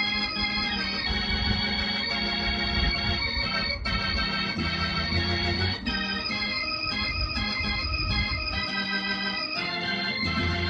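Gospel praise music played live on an electronic keyboard with an organ voice: held chords that change every second or two over a bass line. The bass drops out for about a second near the end.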